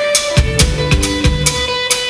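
Live rock band playing an instrumental passage: a drum kit keeps a steady beat under electric guitar and bass guitar.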